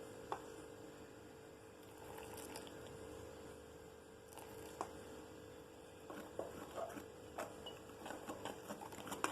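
Hands rubbing oil into flour in a mixing bowl: faint rustling with scattered soft taps, busier in the last few seconds, over a steady faint hum.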